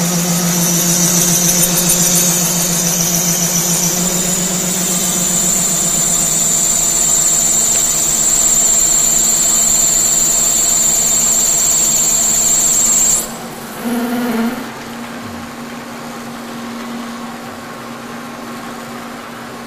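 A K&T horizontal mill spindle, rigged as a lathe, turning a stainless shaft-steel bar with a carbide insert under power feed. The cut gives a steady high-pitched whine, the ringing of chatter in the cut. It stops abruptly about 13 seconds in as the tool comes off the cut, leaving the machine running with a lower, quieter hum.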